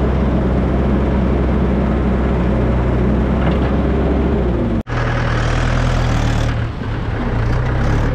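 Heavy diesel engine running steadily, from the JCB 3DX backhoe loader at work. About five seconds in the sound breaks off sharply, and the engine note then goes on slightly higher.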